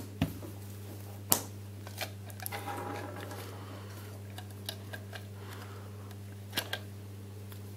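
Scattered small plastic clicks and knocks, the loudest about a second in, with a short scraping rub near the middle, as parts of a waving lucky cat figurine are handled and fitted back together. A steady low hum runs underneath.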